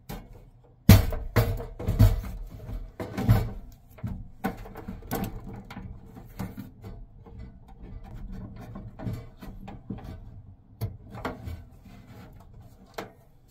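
A Mr. Heater Buddy portable propane heater being handled and set into a plywood wall cubby: a run of knocks and clunks, loudest in the first few seconds, then lighter scattered taps and rustles.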